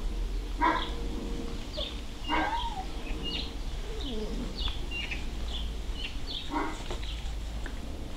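German shorthaired pointer puppies, six weeks old, giving three short barks while play-fighting, about a second in, again near two and a half seconds, and once more near the end.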